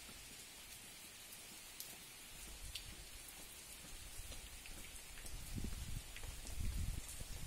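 Steady hiss of rain falling, with scattered sharp drips. Low thumps and rumbling grow louder in the second half.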